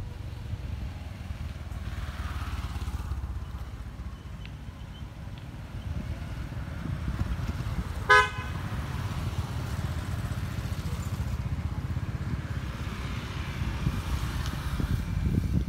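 A passing motorcycle sounds one short horn toot about halfway through, over a steady low rumble of wind and road noise.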